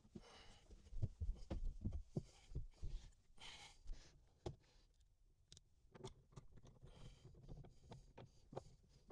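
Faint, scattered clicks and soft knocks of small bolt hardware being handled and fitted by hand into an interior panel, with a couple of brief rustles.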